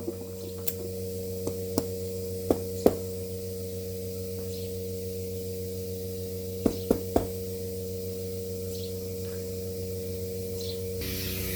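Steady electric hum of a milking machine, with about eight sharp, irregular knocks. A hiss starts near the end.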